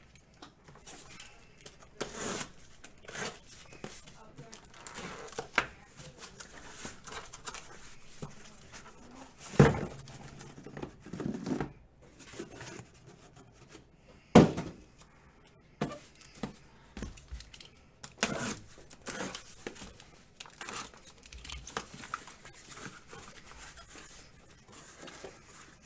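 Trading card boxes being opened by hand: wrapping tearing and crinkling and cardboard being handled, with two sharp knocks partway through.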